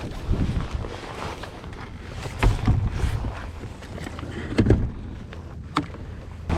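Wind and water noise around a small fishing boat, with scattered knocks and taps against the hull, the two strongest about two and a half and four and a half seconds in.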